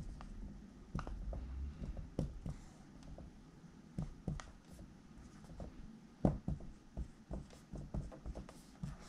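Dry-erase marker writing on a whiteboard: short, irregular taps and strokes as numbers and brackets are written.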